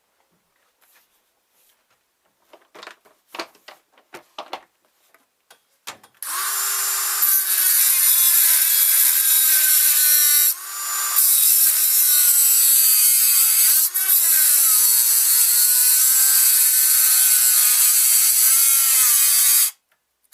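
A few light handling clicks, then a Dremel rotary tool with a cutting wheel starts and runs with a loud high whine as it cuts through lead-covered screws. Its pitch sags and wavers under load, eases off briefly twice, and the tool stops near the end.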